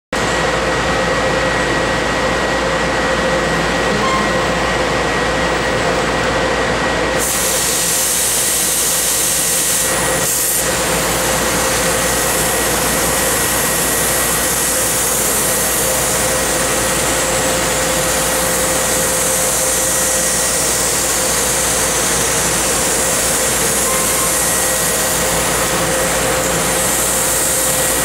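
Tanaka 6 kW laser cutting machine running with a steady hum and a whine. About seven seconds in, a loud high hiss switches on and holds as the cutting head pierces and cuts 3/8-inch mild steel plate.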